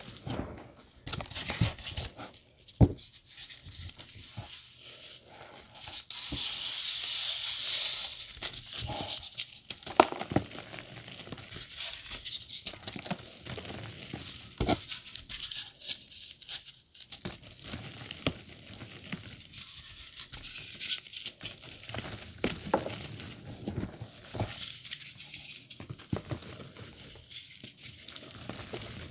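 Reformed gym chalk being crushed and crumbled by hand, chunks crunching and snapping, with powder sifting and pouring through the fingers into a pile of loose chalk. Irregular crunches throughout, a stretch of steady hiss about six seconds in, and a few sharp snaps, the loudest about three and ten seconds in.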